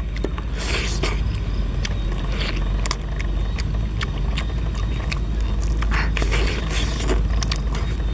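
Close-up eating sounds: grilled chicken being torn apart by hand and chewed, with many short clicks and brief rustling smacks, over a steady low rumble.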